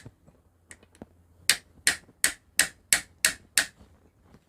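Two faint taps, then seven sharp hammer strikes at about three a second, driving a loose metal part of a sewing machine tight into its seat to take up the play that makes the machine rattle.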